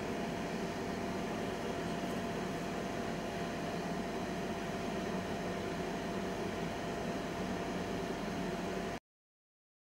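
Steady electric hum with a faint constant whine from the VMI Trilab 50-litre mixer homogenizer's electric cover lift as it raises the vessel cover. The sound cuts off abruptly about nine seconds in.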